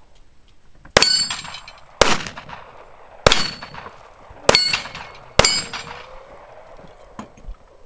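Five gunshots about a second apart, each followed by the ringing clang of a steel target being hit.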